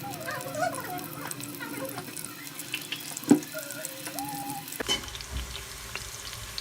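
Sliced onion sizzling in hot oil in a pan, a steady hiss, with a sharp click of the stirring spoon against the pan a little over three seconds in.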